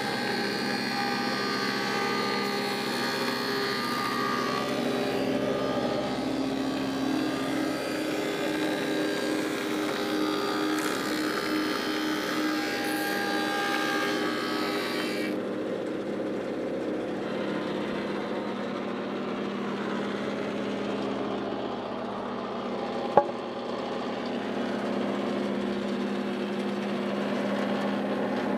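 Woodmaster thickness planer running steadily while black walnut boards are fed through its cutterhead: a constant motor whine with the hiss of cutting. The bright upper part of the sound cuts off suddenly about halfway through, and there is a single sharp knock later on.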